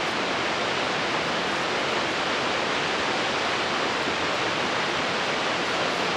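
Waterfall rushing: a steady, unchanging noise of falling water.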